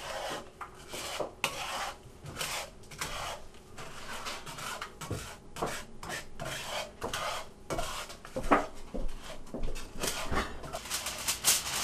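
Wooden spatula stirring raw peanuts and still-unmelted granulated sugar in a frying pan: repeated gritty scraping strokes with occasional knocks against the pan.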